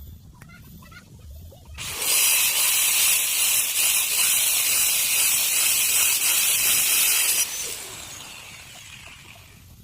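A small power tool runs with a loud, steady hiss from about two seconds in, cuts off after about five seconds, and fades out over the next couple of seconds as it winds down.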